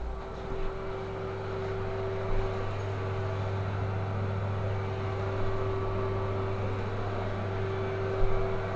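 A steady low mechanical hum with a faint higher steady tone over a background hiss, with a couple of soft bumps about half a second in and again near the end.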